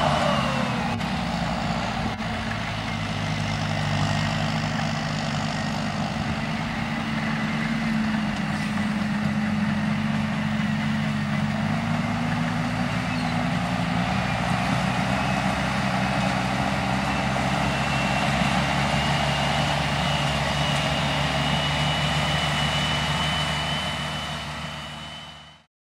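John Deere 6320 tractor's four-cylinder diesel engine running steadily under load while pulling a seed drill, its pitch dropping slightly as it passes in the first second. A thin high whine creeps slowly up in pitch over the second half, and the sound fades out near the end.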